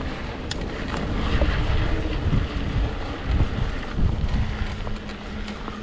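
Wind buffeting the microphone over the rumble and rattle of a mountain bike, a Trek Slash 7, rolling along a dirt trail, with a few sharp clicks and a faint steady hum underneath.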